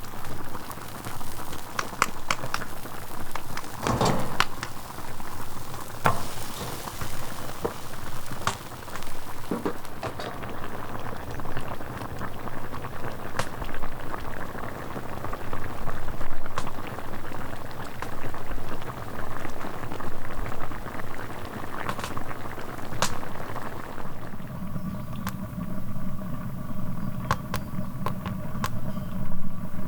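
Steady bubbling and sizzling, like food cooking in a pot, with scattered sharp crackles. A steady hum joins in about three-quarters of the way through.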